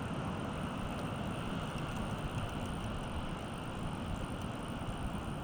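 Steady wind noise rumbling on the microphone, strongest in the low end.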